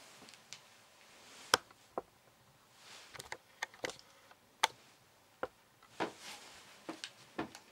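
Irregular sharp clicks and taps, about a dozen, the loudest about a second and a half in and again near the middle, with a few soft rustles between them.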